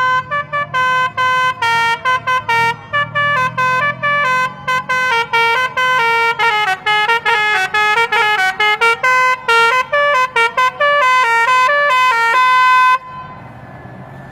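A bus's telolet basuri musical horn playing a fast tune of many short, pitched horn notes, cutting off near the end; a low rumble runs underneath.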